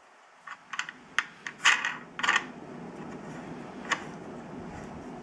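Light metallic clicks and taps of a nut and washer being turned by hand on a bolt in a wooden clamping jig: a quick run of half a dozen clicks in the first two and a half seconds, then a single click at about four seconds.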